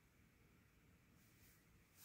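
Near silence: quiet room tone, with a faint soft rustle of a silk fukusa cloth being folded in the hands.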